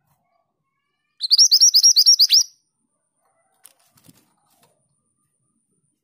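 Female minivet (mantenan) singing a quick run of about ten high, arching notes lasting just over a second, starting about a second in. A few faint light taps follow.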